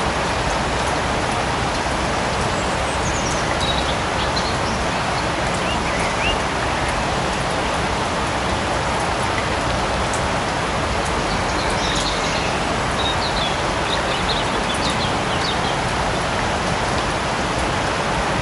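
Steady light rain falling in a forest, an even hiss of drops, with a few short high chirps scattered through it, most of them in the second half.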